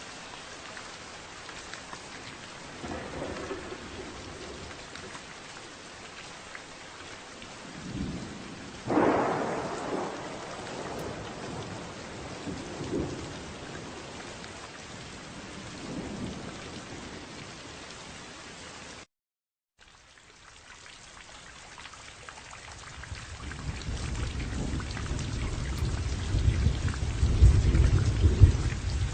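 Steady rain with thunder: a sharp thunderclap about nine seconds in, followed by smaller rumbles. The sound cuts out completely for about a second about two-thirds through, then a long deep rumble of thunder builds up near the end.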